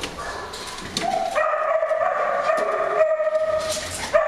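Kennel dogs howling and whining in long, held, high-pitched cries that start about a second in, with short barks or yips around them.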